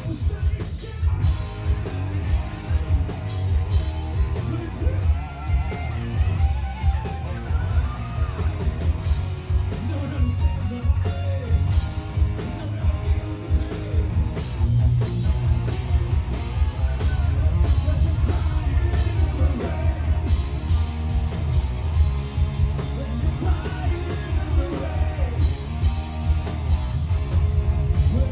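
Live rock band playing: electric guitar, bass and drums, with a lead vocal singing over them.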